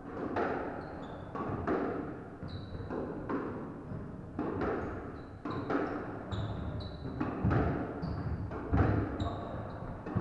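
Squash rally: the ball is struck and hits the court walls about once a second, each hit a sharp echoing thwack. Short high squeaks of court shoes on the wooden floor sound between the hits.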